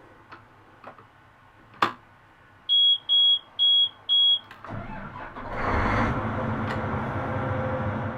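A few clicks, then four short high electronic warning beeps, after which a large farm machine's diesel engine cranks, catches and runs loudly and steadily.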